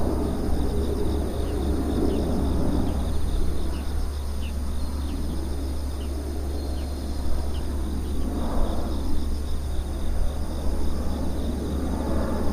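Boeing 747 freighter's four jet engines, a steady low rumble from an airliner passing overhead on final approach.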